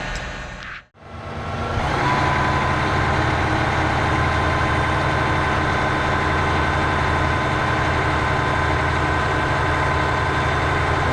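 Crane truck's diesel engine running steadily, with a thin steady whine over it. The sound drops out briefly about a second in, then comes back in and holds steady.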